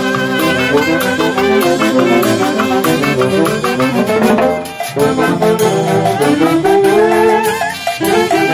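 Brass band playing a tune, with brass horns holding and changing notes together over a steady drum beat; the music briefly drops about halfway before carrying on.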